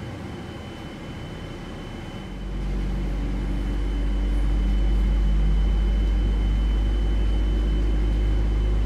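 Airliner cabin noise: a steady hum with a thin high whine, joined about two seconds in by a deep, loud low rumble that swells and then holds steady.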